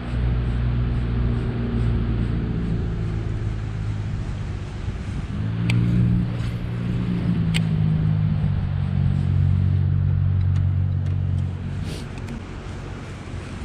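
A motor runs with a steady low hum, shifting pitch about halfway through and fading near the end, with a few sharp clicks over it.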